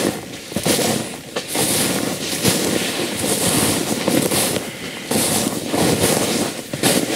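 Footsteps crunching through thin snow, with spruce branches and undergrowth brushing and crackling against clothing as a person walks through forest; the noise comes in uneven surges about once a second.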